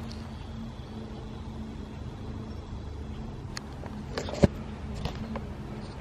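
A steady low motor hum, with a few light clicks and one sharp knock about four and a half seconds in.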